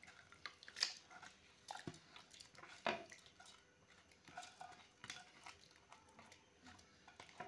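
Spatula scraping and tapping against a bowl and a non-stick pan as crushed soaked rice is tipped into boiling milk: quiet scattered clicks and soft knocks, the loudest about three seconds in.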